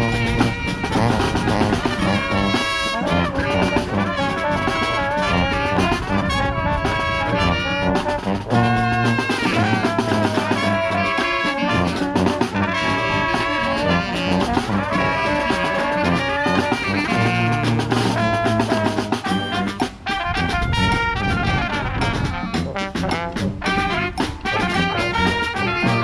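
Street brass band playing a lively tune: trumpets and trombones carrying the melody over a sousaphone bass line and snare drum.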